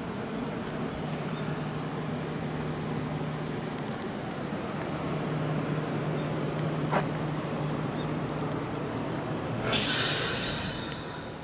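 Kintetsu 8600 series electric train departing: a steady low hum from the train, a sharp click about seven seconds in, and a short burst of hissing about ten seconds in as the train moves off.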